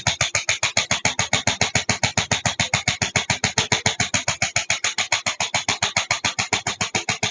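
Electric chiropractic adjustment gun (750 N) firing a rapid, even train of percussive taps, about nine a second.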